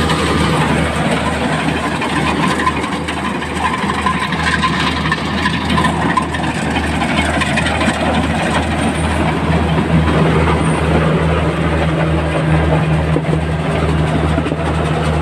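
A motor running steadily with a low, even hum, under a constant rushing noise.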